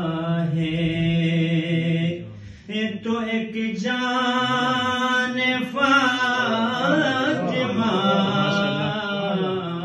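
A man's solo, unaccompanied chanted recitation of an Urdu manqabat (devotional poem), sung in long, held, wavering notes. There is a short break for breath about two and a half seconds in.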